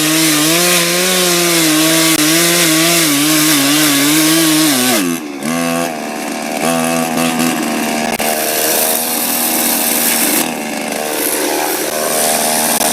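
Chainsaw cutting through a log at high throttle, its engine pitch wavering as the chain loads in the wood. About five seconds in the engine note drops sharply, then the saw runs on at a lower, steadier speed.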